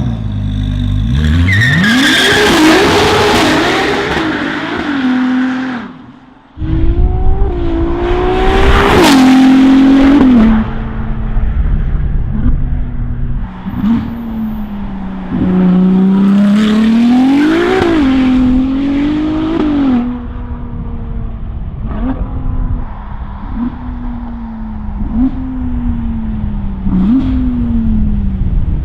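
Ferrari 296 GTB's twin-turbo V6 with a Novitec valved exhaust and its catalytic converters removed, being revved again and again and settling back between revs. Loud throughout, with a sudden break and restart about six seconds in.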